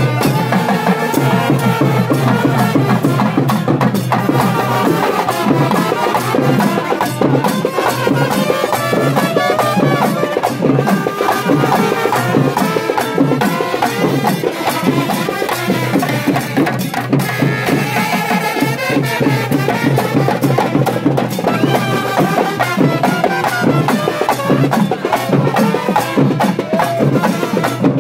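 Sri Lankan papare band playing kawadi papare: trumpets and trombones carry the tune over fast, steady drumming.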